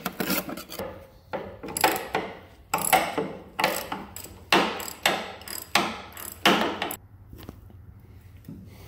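Socket ratchet wrench clicking in about eight separate strokes, roughly one every three-quarters of a second, as it backs out a bolt on a tractor's steering-housing pan; the strokes stop about seven seconds in.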